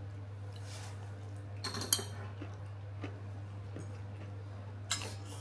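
Metal fork clinking against a ceramic bowl while instant noodles are eaten, with one sharp clink about two seconds in and a short slurp of noodles near the end, over a steady low hum.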